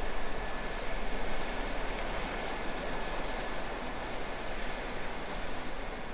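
Boeing 747 turbofan engines running at low power, a steady rushing noise with a thin high whine, heard from inside the cabin while the airliner taxis in after landing.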